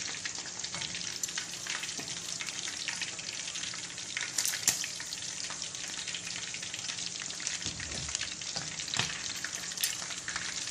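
Chicken wings deep-frying in a pan of hot oil: a steady sizzle full of small crackles, with a few sharper pops, the loudest about four and a half seconds in.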